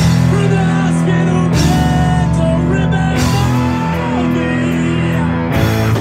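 Rock band playing live: distorted electric guitars, electric bass and a drum kit, with a line sliding up and down in pitch over sustained chords and cymbal crashes at a few points.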